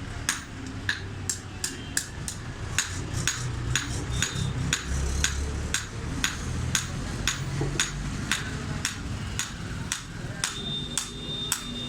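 Blacksmith's hammer striking iron on an anvil while forging a sickle blade: sharp, ringing blows in a steady rhythm of about three a second.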